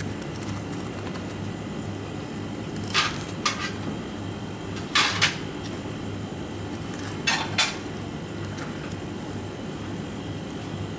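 Filleting knife knocking and scraping against a plastic cutting board and fish bones while an azukihata is cut off the bone: a handful of sharp clicks, mostly in pairs, through the middle. Under them runs a steady low kitchen hum.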